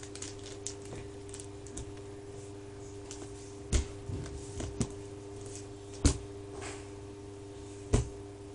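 Small objects being handled and set down: scattered light clicks and ticks, with three louder knocks roughly two seconds apart, about four, six and eight seconds in. A steady low hum runs underneath.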